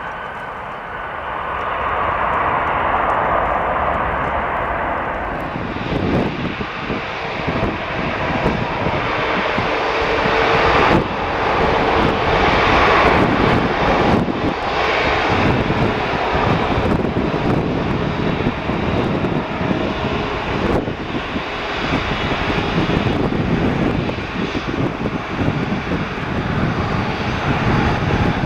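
Jet airliner engines at high thrust, a continuous dense roar with a crackling low end. From about six seconds in it is a British Airways Airbus A380's four Rolls-Royce Trent 900 engines at takeoff power, growing louder and brighter.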